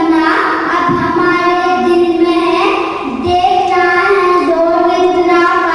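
A boy singing solo into a stage microphone in long, held notes that step up and down in pitch.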